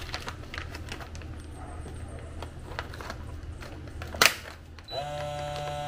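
Light handling noises as a bag of carrots is set into a food vacuum sealer, then a sharp click as the sealer's lid is pressed shut about four seconds in. About a second later the sealer's vacuum pump starts a steady hum, the start of its automatic dry vacuum-and-seal cycle.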